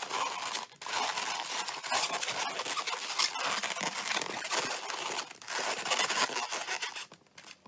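Inflated 260Q latex twisting balloons rubbing and squeaking against each other and the hands as they are pressed and wrapped, a dense run of rubbing that dies down about seven seconds in.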